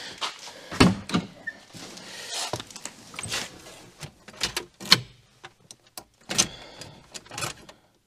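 Irregular knocks and clunks with rustling between them as a car door is opened and shut, with a few sharp bangs about a second in, about five seconds in and again a little later.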